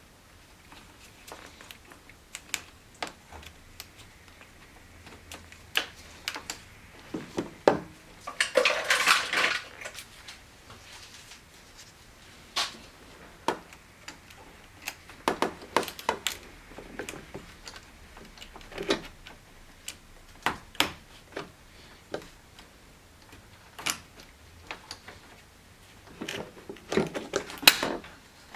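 Hand tools clicking and clinking against metal and plastic parts at irregular intervals, with a louder rattling scrape about nine seconds in and another cluster of clicks near the end.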